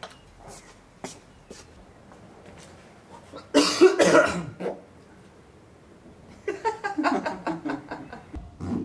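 A man coughs loudly about three and a half seconds in, then laughter follows in a quick run of short pulses near the end.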